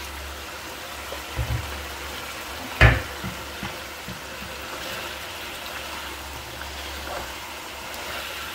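Mutton karahi bubbling and sizzling in its wok over high heat as the last of its cooking water boils off and the oil separates. A sharp knock about three seconds in, just after two softer thumps, is the loudest sound.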